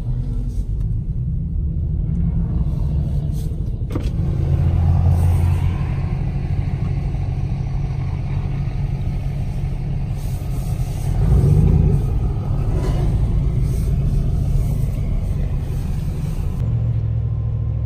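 Pickup truck engines rumbling, heard from inside a truck cab. The rumble swells twice as the trucks pull away.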